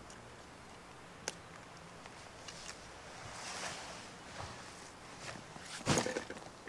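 Large hiking backpack being taken off and put down: a sharp click of a strap buckle about a second in, rustling of straps and fabric, then a dull thud with a few small knocks as the pack is set down on the grass near the end.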